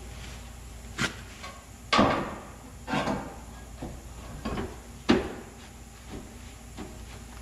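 Sheet-metal replacement rocker panel knocked and shifted into place against a pickup's rocker area for a first test fit: a string of irregular metallic clunks and bangs. The loudest come about two seconds in, with a short ringing tail, and just after five seconds.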